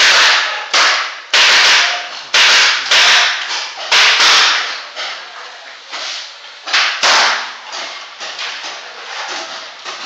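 Paintball fire: a rapid, irregular series of sharp cracks and smacks, loudest and most frequent in the first half and fainter toward the end, ringing inside a small wooden building.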